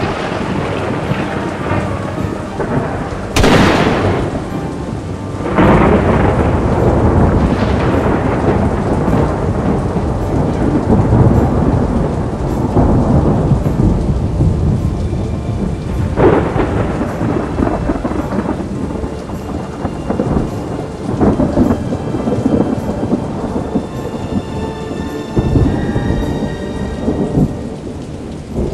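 Thunderstorm: rolling thunder rumbles over steady rain, with a sharp crack about three seconds in and another about sixteen seconds in.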